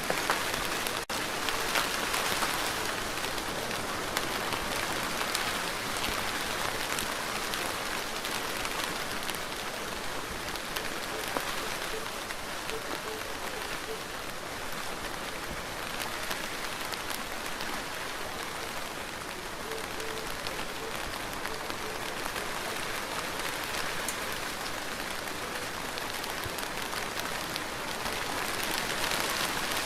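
Steady, even rain falling onto a surface, heard as a dense hiss of countless small drop ticks. There is a momentary dip about a second in.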